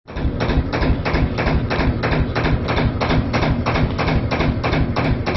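Freshly rebuilt Lister HA2 two-cylinder air-cooled diesel engine running steadily, with an even, loud beat of about four strong pulses a second, heard inside the boat's engine compartment.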